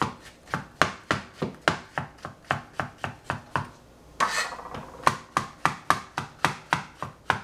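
Kitchen knife chopping food on a cutting board in a steady rhythm of about three to four strokes a second.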